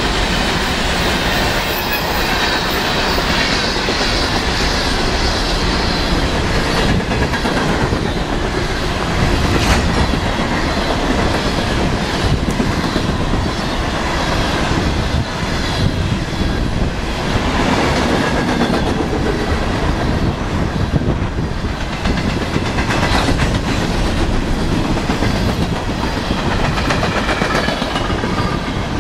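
BNSF freight train rolling past, its wheels clacking steadily over the rail joints.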